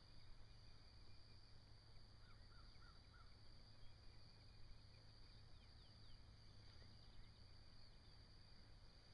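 Near silence: faint outdoor ambience with a steady high hiss, and four soft, quick bird chirps about two to three seconds in.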